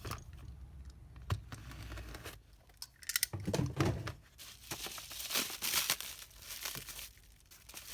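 A package being opened by hand: plastic wrapping and bubble wrap crinkling and tearing, with scattered clicks and rustles that grow busier in the second half.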